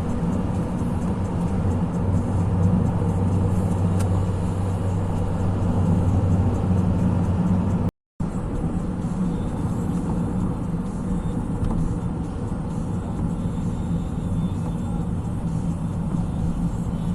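A car running steadily, with a low engine hum and road noise. The sound drops out briefly about eight seconds in, then carries on the same.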